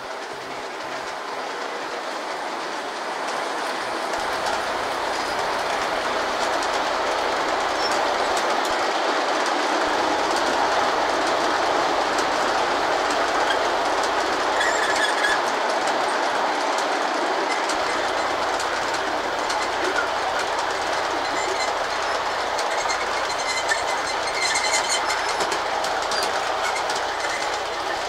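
G scale model freight train of USA Trains cars rolling past close by, a steady rumbling clatter of wheels on the track. It grows louder over the first several seconds as the cars draw near, then holds steady.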